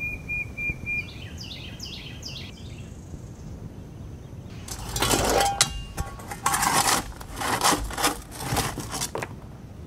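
Shovel scraping and scooping crushed rock in a pickup bed, the stones clattering, in a series of strokes over the second half. Earlier a bird chirps a few falling notes.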